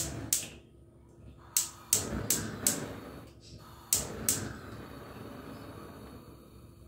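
Gas hob's electric spark igniter clicking in short runs, about three sharp clicks a second, eight in all, as the burner is lit. A soft haze follows the last clicks once the burner has caught.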